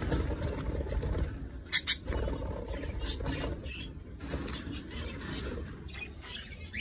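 Caged budgerigars fluttering their wings against the wire, with rustling throughout and two sharp clicks close together about two seconds in.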